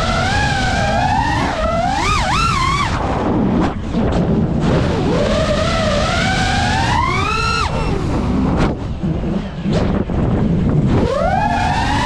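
FPV quadcopter's motors and propellers whining over a steady rush of air, the pitch gliding up and down as the throttle changes. The whine climbs to a high peak about seven seconds in, drops away, and climbs again near the end.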